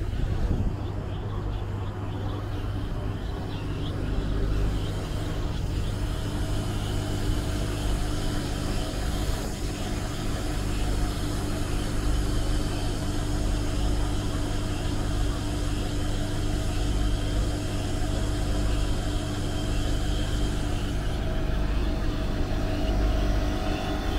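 An engine running steadily: a low rumble with a steady hum over it that sets in a few seconds in.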